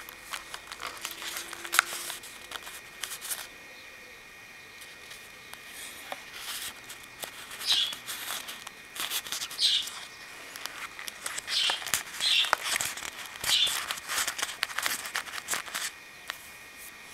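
Paper and card being handled: stiff card pocket flaps in a handmade scrapbook lifted and turned, rustling and crackling in bursts, with a quieter pause about four to six seconds in.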